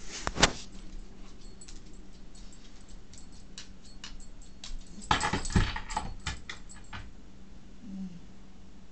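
A dog moving about: claws clicking on a hard floor and collar tags jangling in a string of sharp clicks, with a louder flurry of clatter about five seconds in as it scrambles up onto a wooden bench.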